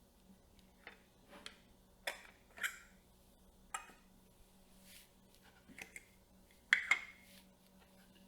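Camera rig parts being handled and fitted: a scattering of small, sharp clicks and taps, with the loudest a quick double click near the end.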